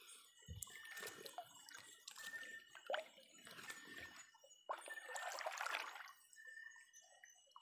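Shallow river water sloshing and splashing in irregular bursts as someone moves through it while hand-fishing for prawns, with a longer, louder splash about five seconds in.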